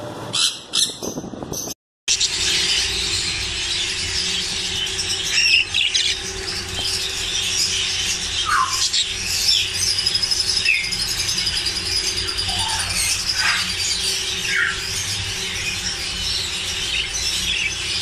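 A group of budgerigars chattering, a dense continuous mix of high chirps, squeaks and short warbled notes. There is a brief cut in the sound just before two seconds in.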